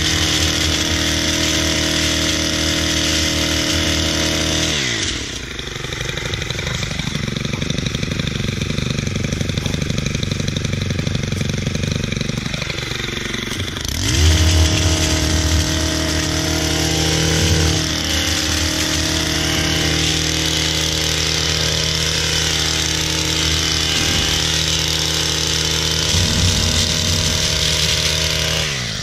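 Stihl long-reach pole hedge trimmer's small petrol engine running near full throttle while cutting a hedge. It drops back about five seconds in, revs up hard again about fourteen seconds in, and winds down near the end.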